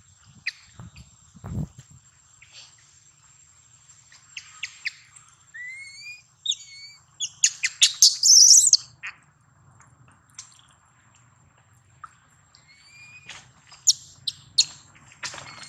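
Baby long-tailed macaque crying in high-pitched squeals and chirps, loudest in a quick run of shrieks around the middle and again near the end. These are a hungry infant's distress calls for milk.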